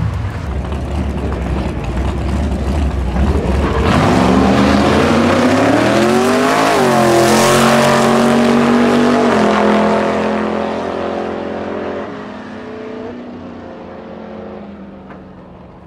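Engines at full throttle as a Chevrolet Corvette with a 9.3-litre V8 swap and a Toyota MR2 launch side by side in a drag race. The pitch rises steeply with a brief break about seven seconds in, then holds and fades as the cars pull away. The first few seconds carry a deep, low-revving rumble from a Nissan Silvia's engine.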